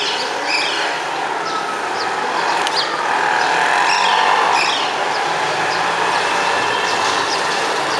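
Steady rush of passing road traffic that swells for a couple of seconds in the middle, with short, high bird chirps scattered over it.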